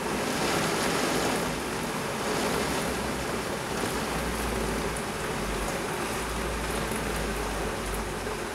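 Torrential rain pouring down, a dense steady hiss from a convective downpour falling at about an inch an hour. A low rumble joins underneath about four seconds in.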